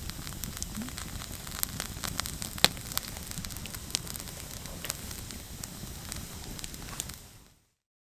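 Wood fire crackling, with a steady hiss and irregular sharp pops, fading out near the end.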